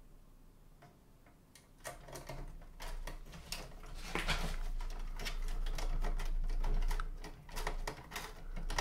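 Irregular clicking and scraping of a screw being worked into the chassis of a stereo unit with a magnetised screwdriver. It starts about two seconds in and continues.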